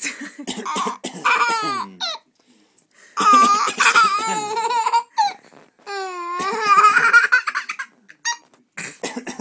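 A baby laughing hard in three long, high-pitched bursts with short breaks between, laughing at someone's coughing.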